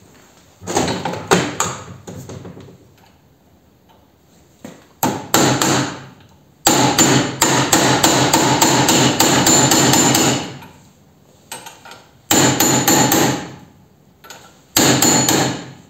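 Steel hammer driving short steel dowel pins into a thick washer clamped in a bench vise. It comes as several bursts of quick blows, the longest a run of about five strikes a second in the middle, with metal ringing under them.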